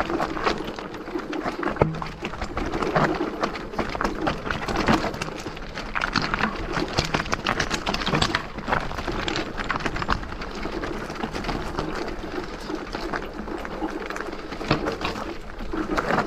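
Electric off-road bike riding over loose scree and rocks: tyres crunching on stones with dense, irregular rattling and knocking from the bike.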